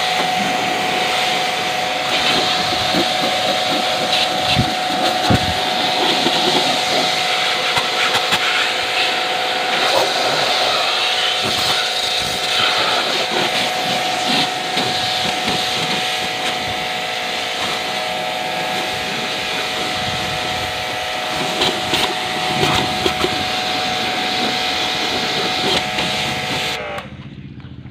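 Electric pressure washer running, its motor giving a steady whine under the hiss of the water spray, until it cuts off suddenly near the end.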